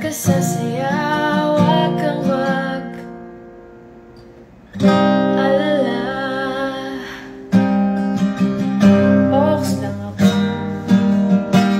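Acoustic guitar strummed with a woman singing over it. A chord is left to ring and fade for a few seconds, then new strums come in about five seconds in and again near seven and a half, with quicker strumming toward the end.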